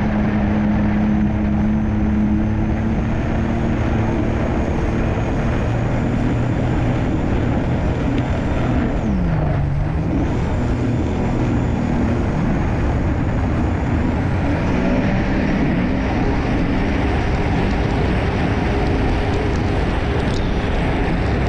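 Personal watercraft's Rotax 1503 three-cylinder engine running at speed, with heavy wind and water rush on the microphone and a faint high whine. The engine note dips about halfway through as the craft slows, then picks up again as it accelerates. The run is a test of an engine that won't rev up to 8000 rpm.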